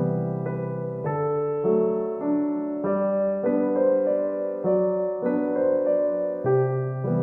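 Gentle background piano music: soft keyboard chords and single notes changing about every half second.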